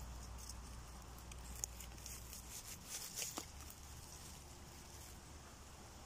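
Faint rustling of leaf litter and a few soft clicks as a knife cuts a birch bolete mushroom at its stem and the hand lifts it out. The clearest click comes about three seconds in.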